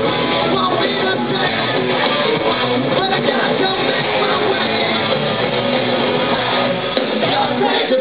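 Hard rock band playing live through a PA: electric guitars, drums and a lead singer, loud and steady, recorded from inside the crowd.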